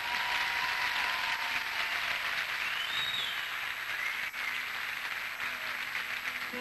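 Studio audience applauding steadily after the act is introduced.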